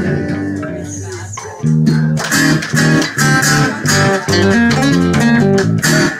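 Live guitar band letting a held chord ring and fade, then kicking back in with the song's rhythmic riff about a second and a half in: a trick ending.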